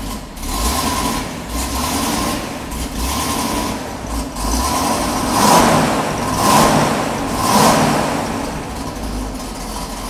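1968 Pontiac Firebird's 350 HO V8 running through its exhaust with a low rumble, blipped three times about halfway through.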